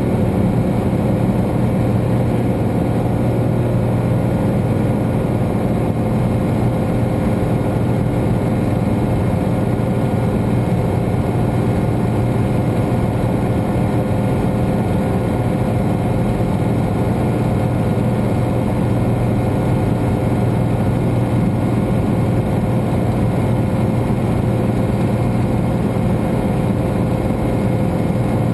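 Cessna 210 Turbo's turbocharged six-cylinder piston engine and propeller running steadily in flight, heard as a constant drone inside the cabin.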